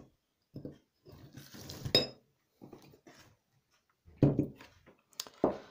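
Kitchen dishes being handled on a table: a spoon clinking against a jar and bowls knocking and being shifted, in short irregular clatters, with one sharp ringing clink about two seconds in.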